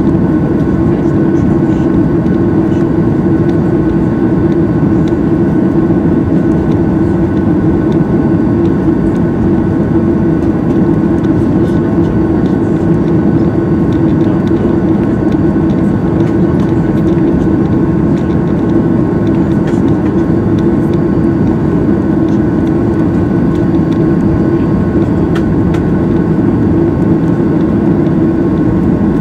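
Steady cabin drone of a Boeing 737-800 taxiing, its two CFM56-7 turbofans running at taxi power. A constant rumble carries a couple of thin steady whine tones above it.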